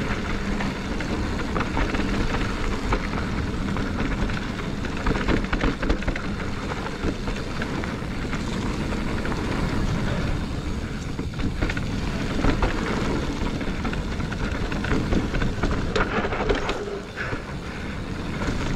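Mountain bike being ridden along a dirt trail: a steady rushing of wind on the microphone mixed with tyre rumble over the dirt.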